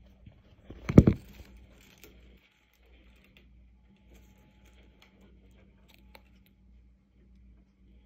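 A short cluster of thumps and rustles about a second in, as an inflatable dinosaur costume brushes against the phone. Under it and after it runs a faint steady hum, typical of the costume's battery blower fan.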